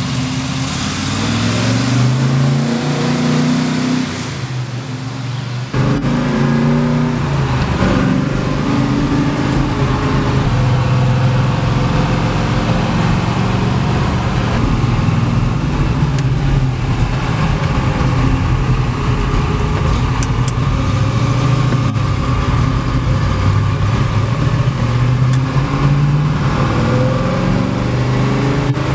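Chevrolet Nova SS V8 engine revving up as the car pulls away, then, after a sudden change about six seconds in, heard from inside the car accelerating and easing off again and again, its pitch climbing and falling.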